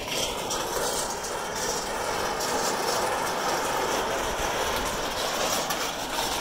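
Strong gale-force wind gusting past and buffeting the microphone, a steady, dense rush of noise with no let-up.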